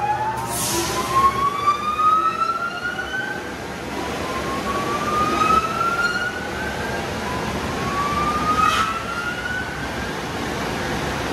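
A pitched whine sweeping slowly upward three times, each sweep lasting a few seconds, over a steady rush of car wash noise, with two short hissing bursts, one near the start and one near the end.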